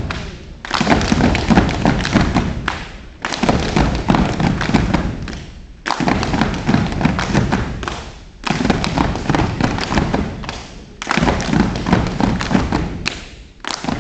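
Step team stepping in unison: rapid rhythmic stomps and claps in phrases of about two and a half seconds, each followed by a brief pause.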